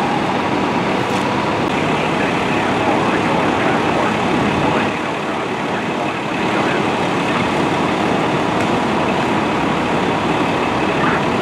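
Steady running noise of idling fire engines and street traffic, with a slight dip in level about five seconds in.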